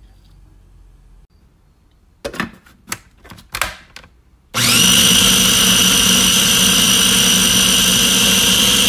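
Small plastic food processor: a few plastic knocks and clicks as its lid is fitted, then about halfway through its motor starts with a quick rising whine and runs loud and steady, blending cilantro, onion, garlic and olive oil into a sauce.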